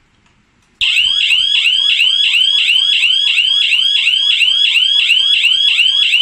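Electronic alarm siren from a G2C GSM home alarm system going off: a loud, fast, repeating rising whoop, about three sweeps a second, that starts suddenly about a second in.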